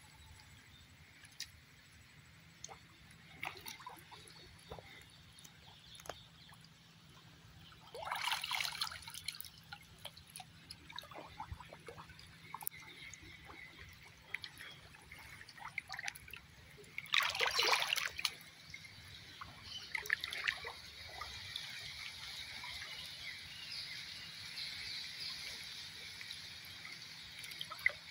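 Water dripping and trickling from a wet cast net as it is gathered by hand, with small splashes from a man wading waist-deep. Two louder splashes come about 8 and 17 seconds in.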